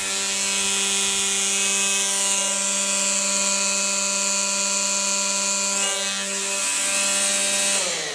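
Makita XRU11M1 18V brushless cordless string trimmer running free with no load: a steady motor whine with the hiss of the spinning nylon line. It winds down with falling pitch near the end.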